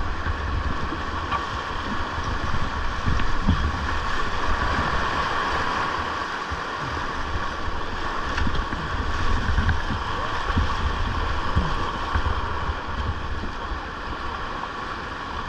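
Rushing whitewater of a river rapid, a steady noisy wash, with low rumbling buffets of wind on the microphone underneath.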